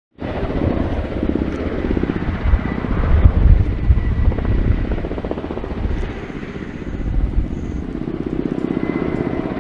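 Kamov Ka-52 attack helicopter flying close overhead, its coaxial twin rotors making a rapid, rhythmic beating that is loudest about three seconds in.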